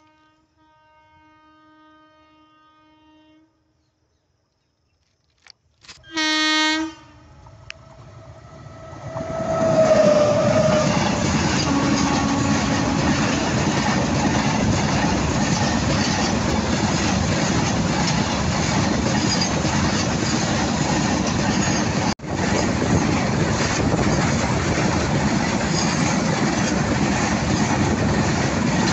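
A train horn gives one short, loud blast about six seconds in. The train then closes in and passes right over the rails beside the microphone, with a loud, steady rumble and clatter of wheels on track that lasts to the end, broken once by a brief dropout.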